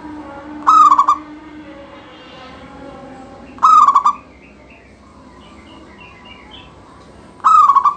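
Local zebra dove (perkutut) in full song, giving three loud, short cooing calls about three and a half seconds apart, each with a quick bend in pitch. Softer steady coos and a few faint high chirps from other birds carry on between them.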